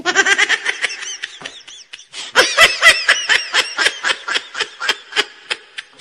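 High-pitched laughter in rapid repeated 'ha-ha' pulses, in two bouts: a short one at the start, then a louder, longer one from about two seconds in.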